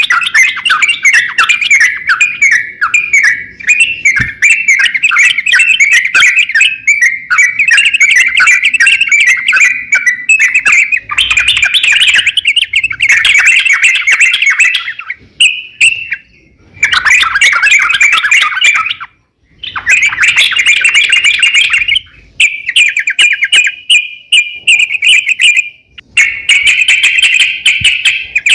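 Crokcokan songbird singing energetically: long runs of fast, chattering chirps and squawky notes, broken by short pauses about halfway through and a few more times near the end.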